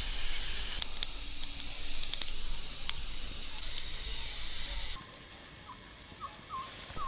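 Meat sizzling over a charcoal fire, with a steady hiss and sharp crackles and pops from the coals. About five seconds in it drops quieter, leaving a few short, high chirps.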